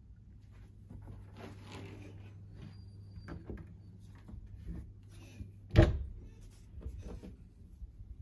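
Wardrobe cabinet doors being opened and handled, with rustling, small knocks and one sharp knock about six seconds in, the loudest sound. A steady low hum runs underneath.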